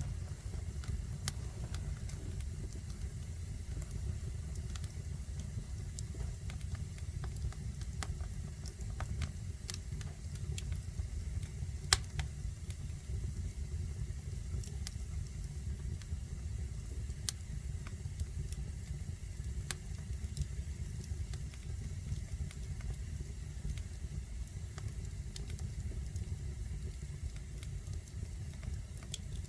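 Fire burning in a fireplace: a steady low rumble with scattered crackles and pops, one much sharper pop about twelve seconds in.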